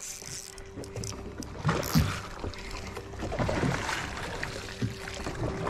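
Wind and water noise around a small fishing boat at sea, with a steady hum running under it.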